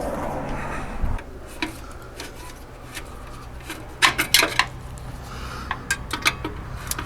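Small metal hand tools and trim parts clinking and clicking in scattered short bursts, the sharpest cluster about four seconds in, over a faint low steady hum.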